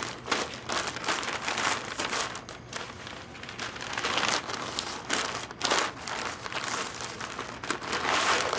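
Butcher paper crinkling and rustling in irregular bursts as it is folded and tucked tightly around a brisket.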